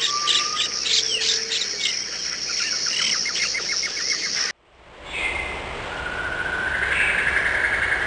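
Birds chirping and singing, many short calls overlapping. The sound cuts off abruptly about four and a half seconds in. Then a second bed of chirping comes in over a steady hiss.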